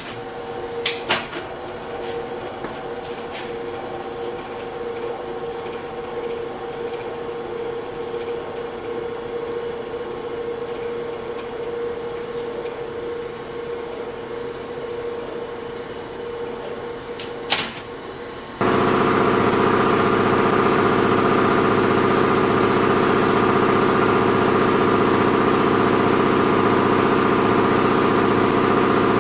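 Bridgeport vertical milling machine running: a few sharp clicks at the start over a steady hum, then the sound jumps abruptly much louder into a steady, even machine hum about two-thirds of the way in.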